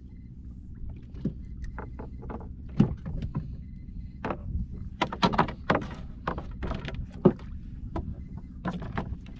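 Steady low hum on a small fishing boat at sea, with a run of sharp clicks and knocks from rods, reels and tackle being handled on board. The clicks are thickest about halfway through.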